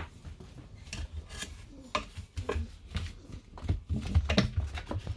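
English Springer Spaniel puppies scuffling and play-fighting on a chequer-plate floor: irregular scratching and scraping, with sharp clicks of claws and paws.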